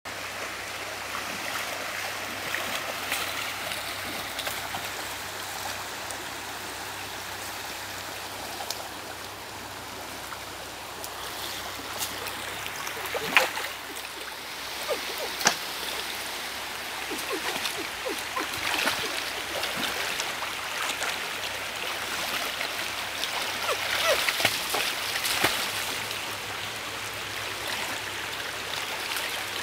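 Shallow stream water sloshing and splashing as people wade through it and rummage in a floating pile of brush with their hands and sticks, with occasional sharp splashes or knocks and a busier spell of splashing near the end.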